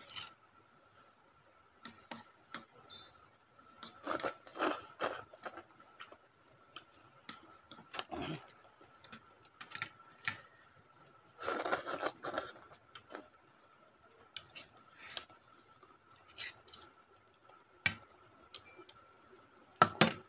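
Metal forks clicking and scraping against a ceramic bowl of noodles in scattered, irregular clicks, with two longer, noisier stretches of eating about four seconds in and again around twelve seconds.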